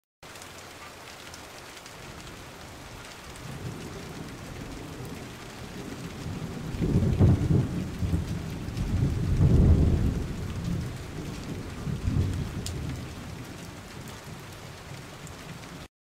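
Steady rain falling, with rolling thunder that swells a few seconds in, peaks twice in the middle with a smaller roll after, and dies away near the end. The sound cuts off abruptly just before the end.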